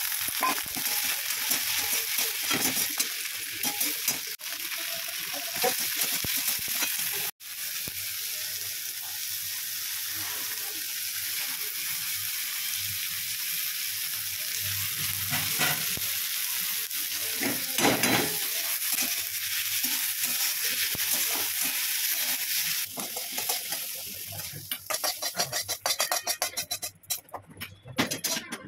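Onions, tomatoes and whole spices sizzling in oil in a steel kadhai while a steel spatula stirs and scrapes against the pan. Near the end the sizzle gives way to broken scraping and clinks of the spatula on steel.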